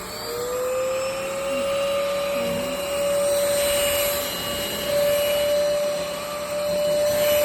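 VersLife S7 Plus cordless stick vacuum's motor spinning up: its whine rises for about a second, then holds at a steady pitch over the hiss of rushing air.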